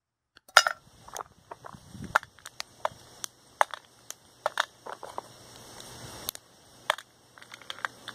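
Paraffin wax candles being snapped into pieces by hand and dropped into a small metal pot: a run of sharp, irregular snaps and clicks.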